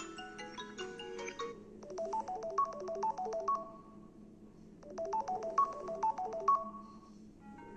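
Samsung Galaxy S20+ ringtones. One tone ends in the first second and a half. Then a short chiming melody plays twice, about three seconds apart.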